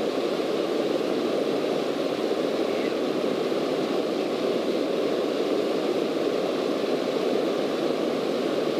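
Steady drone of a Cessna light aircraft's piston engine and propeller in cruise flight.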